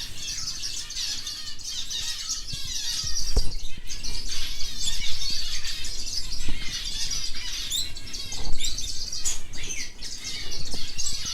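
A flock of canaries chirping and calling continuously, many birds overlapping at once.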